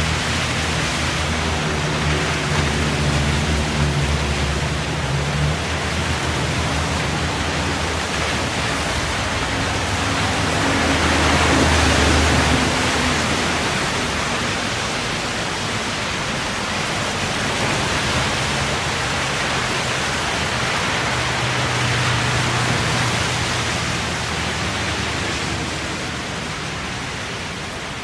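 Traffic on a wet road: a steady hiss of tyres on water with vehicles passing in slow swells, the loudest pass about twelve seconds in. Low engine hum from nearby vehicles shows in the first few seconds and again past the middle.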